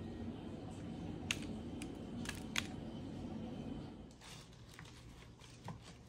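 Light handling noises: a few sharp clicks over a low room hum, turning quieter about four seconds in.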